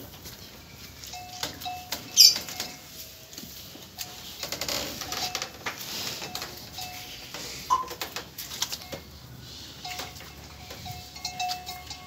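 Cows and calves feeding on hay in a cattle shed: rustling with many small clicks and knocks, and a sharp loud knock about two seconds in. Short repeated chirps sound near the start and again near the end.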